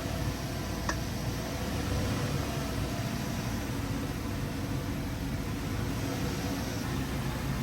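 2012 GMC Yukon XL Denali's 6.2-litre V8 running at low speed as the truck is pulled into the shop, a steady low rumble, with a single short click about a second in.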